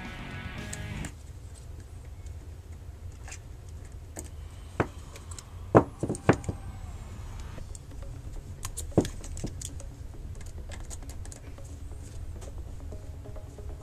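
Small metallic clicks and taps of a screwdriver and tiny screws as screws are taken out of an iPhone 4 and set down, with a few sharper clicks around the middle, over a steady low hum.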